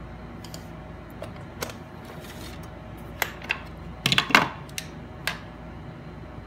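Small precision screwdrivers and a plastic screwdriver-bit case handled on a hard desk: scattered sharp clicks and taps, with a quick cluster of the loudest knocks about four seconds in.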